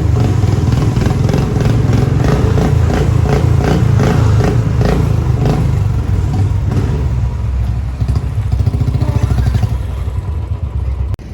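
Motorcycle engine running while riding, with a rapid rattling clatter over the first half. The sound thins out and becomes uneven near the end.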